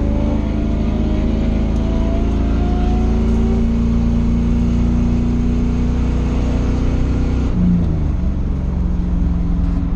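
Race car's engine heard from inside its stripped cabin, pulling with a slowly rising pitch, then holding steady. About seven and a half seconds in the throttle comes off and the engine drops to a lower note.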